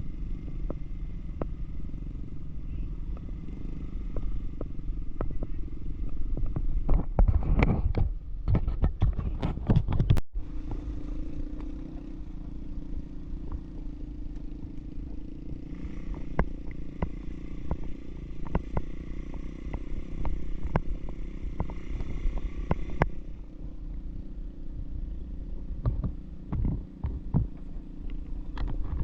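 ATV engine running steadily on the move, with frequent sharp knocks and rattles, thickest about seven to ten seconds in and again near the end. The sound cuts out for an instant about ten seconds in.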